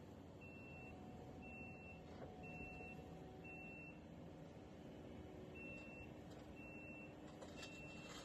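Faint backup alarm of a compact track loader beeping in a steady high tone, about once a second: four beeps, a short pause, then three more. A low, steady engine hum runs faintly underneath.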